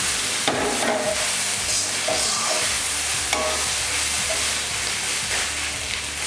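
Fried rice sizzling steadily in a pan on high heat as it is stirred, just after sweet soy sauce has gone in.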